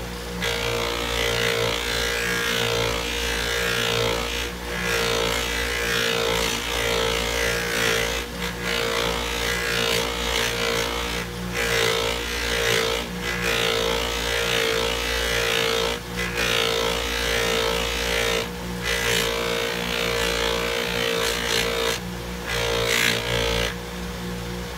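Small bench buffer running steadily while an aluminum motorcycle engine cover is pressed against the spinning buffing wheel, a rushing rub over the motor's hum that breaks off briefly every few seconds as the part is eased away and pressed back.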